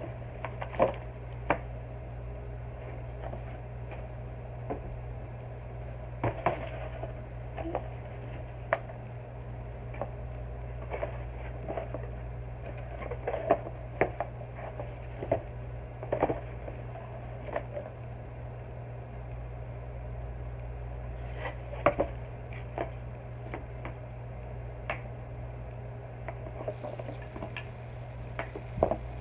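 Scattered light clicks and knocks of toy shape pieces being handled and dropped, a few every couple of seconds, over a steady low hum.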